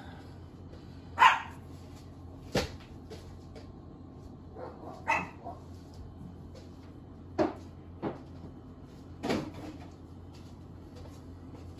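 A dog barking in short single barks, about six spread over the span, the first, about a second in, the loudest, over a low steady hum.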